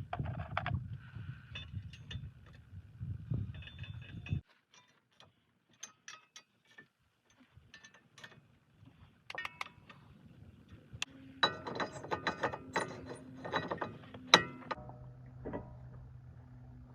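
Hand tools clinking and clicking against metal as the brake dust shield is fitted back onto the wheel hub, sparse at first, then a dense run of rapid metallic clicks with one sharp strike near the end. A low steady hum starts shortly before the end.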